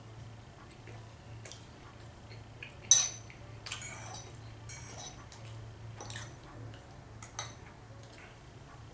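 Cutlery clinking and scraping on a ceramic dinner plate: a handful of scattered clinks, with one sharp, loud clink about three seconds in, over a faint steady low hum.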